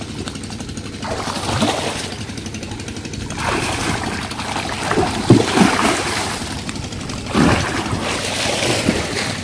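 Muddy canal water splashing and sloshing around a man wading chest-deep and groping by hand in a bank hole for fish. The churning comes in several surges, loudest about five seconds in.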